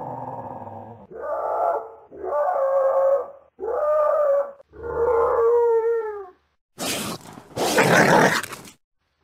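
Coyote vocalising: four short, pitched, howl-like calls of about a second each, the last trailing down in pitch, then a loud, harsh, raspy growl near the end.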